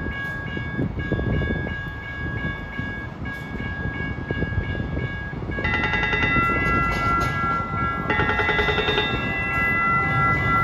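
MAX light-rail train arriving at the platform, with a steady high tone at first, then from about halfway a louder, rapid ringing of several tones as the train draws alongside.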